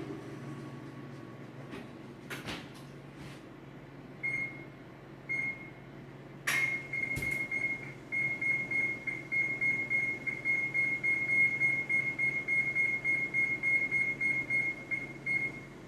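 A kitchen oven's electronic control panel beeping as its cooking time is set for the cornbread. Two single beeps come first, then a sharp knock, then a long run of quick beeps at about three to four a second. A few faint knocks come before the beeps.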